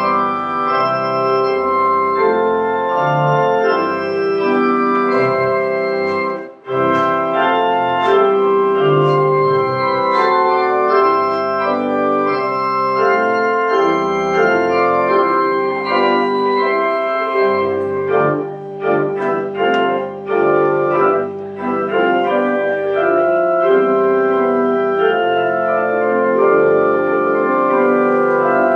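Organ playing full, sustained chords that change every second or so, with a brief break about six and a half seconds in and a few shorter, detached chords past the middle.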